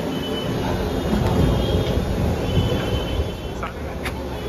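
Busy street-food stall ambience: a steady low rumble of street noise, with two sharp clicks a little before the end.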